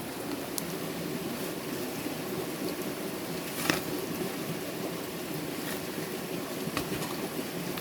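Steady rush of running water, with a few short knocks, one about halfway through.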